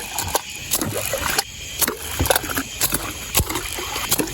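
Irregular knocks and scrapes on a bowfishing boat, about a dozen sharp ones, over the steady running of the boat's motor and water.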